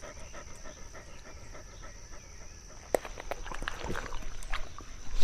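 A dog panting steadily, with a steady high-pitched tone underneath. About three seconds in a sharp click is heard, then scattered rustles and clicks.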